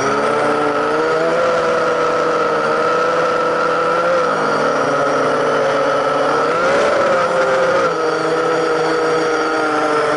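Drone's motors and propellers, heard from its onboard camera, giving a steady whine. The pitch rises for about a second around two-thirds of the way through, then drops back.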